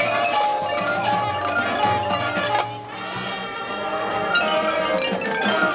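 High school marching band playing its half-time show: sustained brass chords over mallet percussion from the front ensemble. The music eases off briefly about halfway through, then swells back up.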